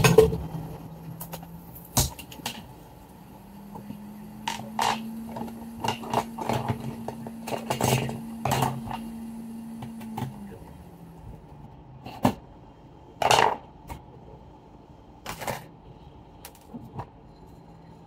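Scattered small clicks and knocks of hand tools being handled on an electronics repair bench, with a steady low hum for several seconds in the middle.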